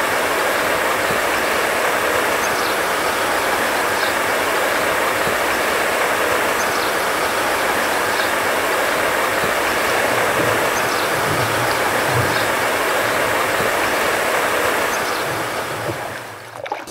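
Water rushing through a river weir gate: a loud, steady roar that fades out near the end, with a few faint high chirps over it.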